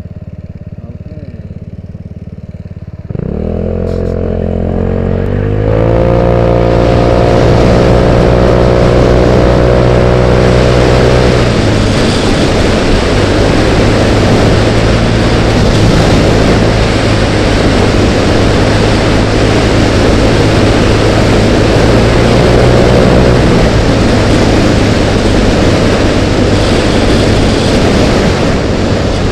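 Genuine Buddy 150cc scooter engine idling, then revving up about three seconds in as the scooter pulls away, its pitch climbing and then holding steady. From about twelve seconds in, wind rushing over the helmet camera at riding speed mostly covers the engine.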